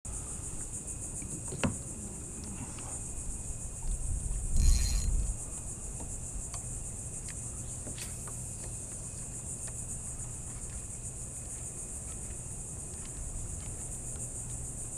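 Steady high-pitched chorus of insects buzzing in the mangroves, with a few sharp clicks and a louder stretch of low rumbling noise about four to five seconds in.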